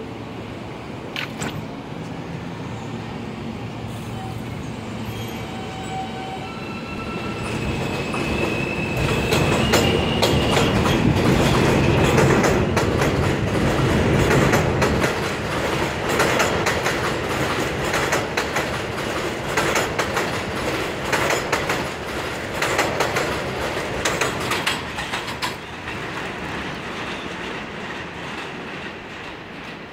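R160 Alstom New York City subway train pulling out of an elevated station: its motors whine in rising steps as it accelerates. Then comes a loud clatter of wheels over rail joints as the cars pass, fading away as the train leaves.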